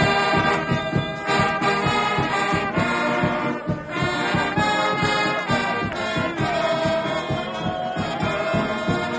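A fans' brass band of trumpets and trombones playing a loud tune together over a steady beat.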